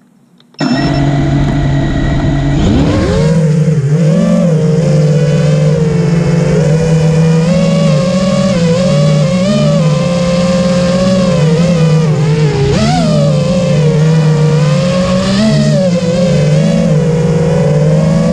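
FPV quadcopter's brushless motors and propellers whining, starting abruptly about half a second in; the pitch rises and dips with throttle changes and climbs steadily near the end.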